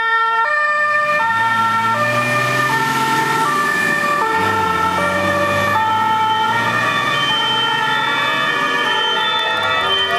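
German two-tone emergency sirens (Martinshorn) on passing fire engines, each stepping back and forth between a high and a low note, with more than one siren sounding out of step. A truck's diesel engine runs underneath.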